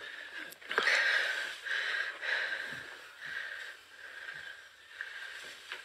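Quiet, hissy breathing close to a phone's microphone, in irregular swells, with a couple of faint clicks.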